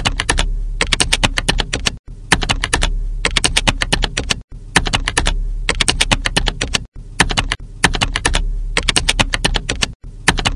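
Keyboard typing sound effect: rapid clattering key clicks in runs of about two and a half seconds, each broken by a brief gap, going with the on-screen text being typed out.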